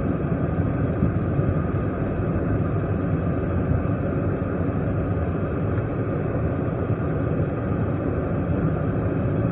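Steady road and engine noise of a moving police car, heard from inside the cabin.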